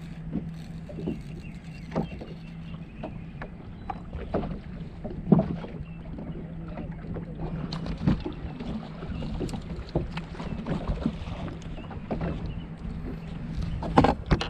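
Water lapping and slapping against a bass boat's hull over a steady low hum, with irregular knocks and thumps on the deck while a fish is fought and landed on rod and reel; the loudest knocks come about five seconds in and near the end.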